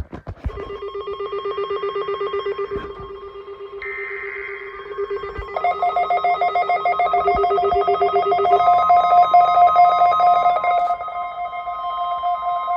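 Several weather alert radio alarms sounding at once: rapidly pulsing electronic beeps at different pitches. They come in one after another over the first six seconds, the lowest stops after about nine seconds, and some of the higher ones drop out near eleven.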